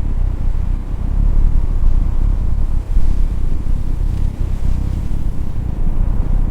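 Blizzard wind blowing hard: a loud, steady, deep rumble.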